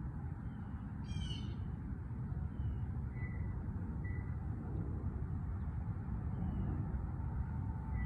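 Birds chirping faintly: a quick descending trill about a second in, then scattered short high chirps. A steady low rumble runs underneath and is louder than the birds.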